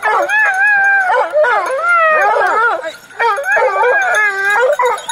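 Leashed hunting hounds whining and crying in long, wavering calls, several voices overlapping, straining with eagerness to be let loose on the boar.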